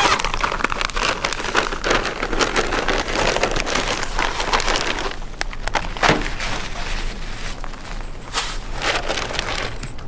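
Plastic food bags crinkling and rustling as they are handled, a dense run of crackles that thins out over the last few seconds.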